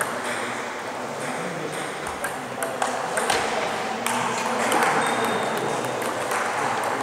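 Celluloid-type table tennis balls clicking off bats and tables, short sharp ticks coming at irregular spacing from rallies at more than one table.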